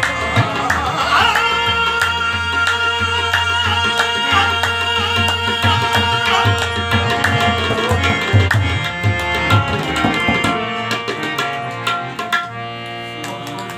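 Harmonium and tabla playing together: held harmonium notes over a busy tabla rhythm. The tabla's deep bass strokes stop about ten and a half seconds in, and the harmonium carries on more softly.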